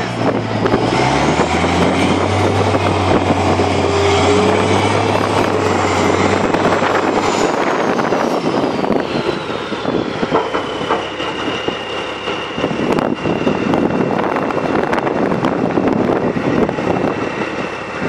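Dumper truck engine revved up to drive the tipper as the loaded body rises and dumps its load of wet sand. The revs drop about six seconds in. A high whine falls in pitch around the middle, then holds steady under the rough noise of the machine and the sliding sand.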